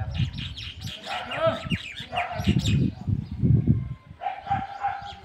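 A mix of people's voices and animal calls, with one steady held call lasting about a second near the end.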